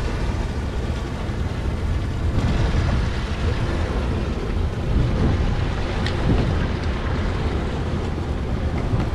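Sportfishing boat's engine running underway, a steady low rumble, with wind buffeting the microphone and water noise from the sea.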